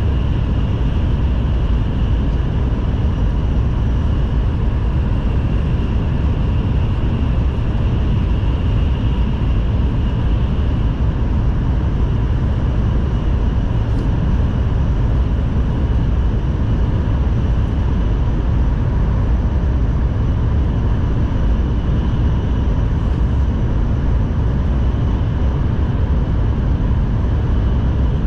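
Running noise inside the cabin of a Shinkansen Kamome train at speed: a steady heavy rumble with a faint steady whine on top.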